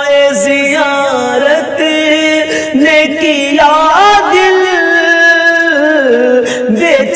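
Male voice singing a naat, an Urdu devotional poem, in long drawn-out melismatic notes that bend and glide between pitches, with a rising run about three and a half seconds in into a held high note.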